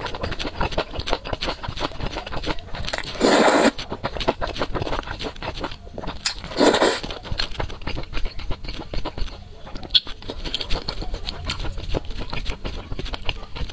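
Slurping of thick noodles in a saucy chili dressing: two loud slurps, about three and a half and about seven seconds in. Between them comes a steady run of wet chewing and mouth clicks.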